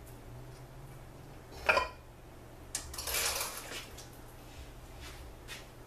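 Steel clutch-drum parts of a TH400 automatic transmission handled on a steel workbench: one sharp metal clank about a second and a half in, then about a second of scraping and rattling as a part is lifted out of a drum, and a few lighter clicks near the end.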